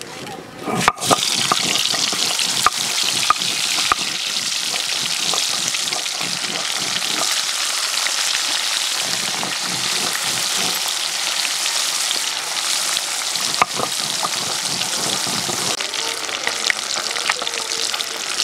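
Pieces of puta fish frying in hot oil in an iron wok: a steady sizzle that starts suddenly about a second in, with occasional sharp spits and crackles.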